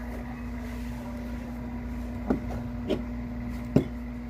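A steady low hum throughout, with three short knocks a little over two, about three and nearly four seconds in, the last the loudest.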